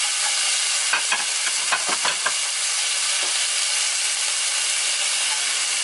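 Flank steak and green beans with onions frying in two hot pans: a steady sizzle, with a few light clicks of a utensil between one and two seconds in.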